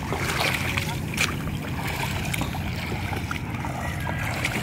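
Bare feet wading through shallow seawater, a steady sloshing and swishing of water with a few small splashes.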